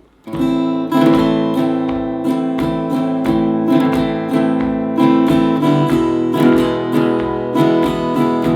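Acoustic guitar strummed in a steady campfire rhythm, with the strumming starting about a third of a second in. The pattern includes a sweep played upward across the strings after the first beat.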